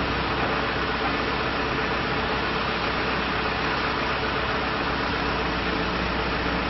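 Diesel engine of a John Deere 310SJ backhoe loader running steadily at an even speed, with no revving.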